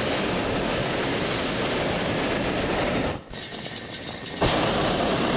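Hot air balloon's propane burner firing in two long blasts, a loud steady rush of flame. It cuts off sharply about three seconds in and fires again about a second later.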